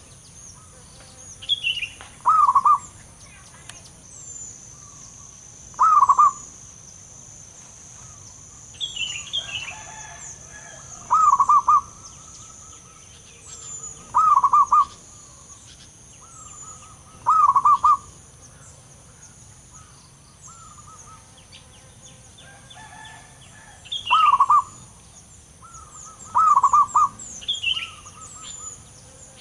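Zebra dove singing its song: short rolling, staccato coos, about eight phrases each under a second, repeated every few seconds. Fainter high chirps from other small birds and a steady high-pitched drone run beneath.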